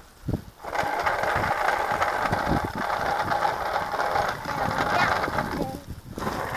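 Bicycle freewheel ticking as the bike coasts, with tyres rolling on the path; it drops out briefly near the end.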